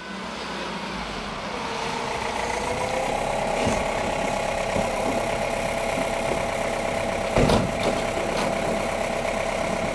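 Fire-service rescue van pulling up and its engine idling steadily, with a single sharp thud about seven and a half seconds in as a door is slammed.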